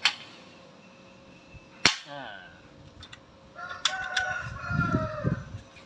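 Hand pop-rivet tool clicking as it is squeezed, with a sharp snap about two seconds in as the rivet's mandrel breaks off and the rivet sets through the mosquito screen. A rooster crows in the background near the end: one long call that falls away at its close.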